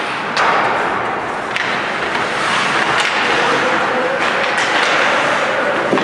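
Ice hockey rink sounds: a steady wash of crowd noise and shouting voices, broken by several sharp cracks of sticks, puck and players hitting the ice and boards. The crowd grows louder about halfway through.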